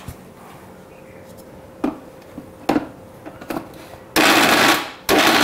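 A steel mixer-grinder jar is handled with a few light knocks, then, about four seconds in, the electric mixer grinder runs in short pulses of under a second, grinding stiff poha papad dough into a smooth, uniform mass.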